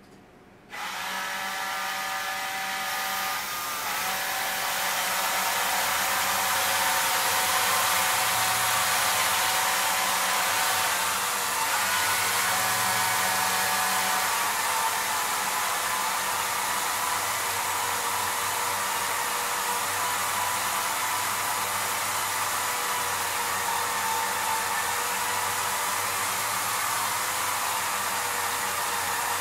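Motors of a homemade motion-control camera gantry driving the camera along its axes: a steady whirring that starts abruptly about a second in, with several whining tones that shift as the axes change speed.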